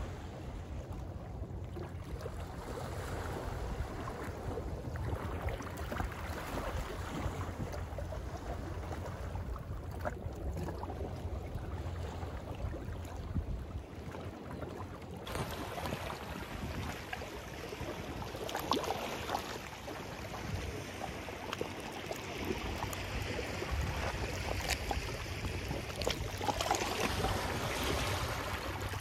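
Sea waves washing along the shore with wind rumbling on the microphone. The sound gets brighter and hissier abruptly about halfway through.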